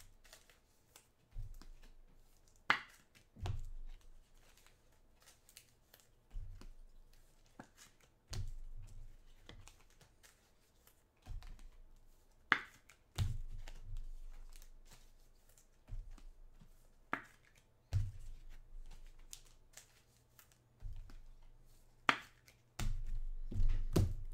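Irregular clicks, taps and low thuds of trading-card packaging and cards being handled on a table, with a few sharper snaps or tearing sounds.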